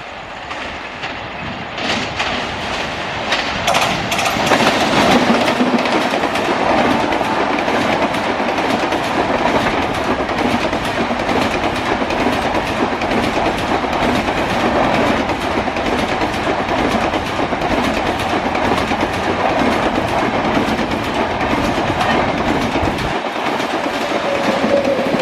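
Push-pull Rajdhani Express with WAP-7 electric locomotives at both ends passing at high speed. The sound builds over the first few seconds into a steady loud rush of coaches, with a rapid clickety-clack of wheels over rail joints. The rear locomotive goes by near the end.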